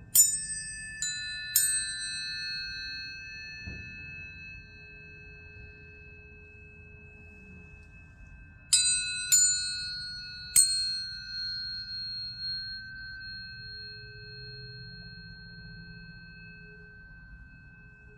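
Tuning forks struck, three times in quick succession near the start and three more about halfway through. Each strike is a sharp metallic tap followed by clear ringing tones that overlap and fade slowly.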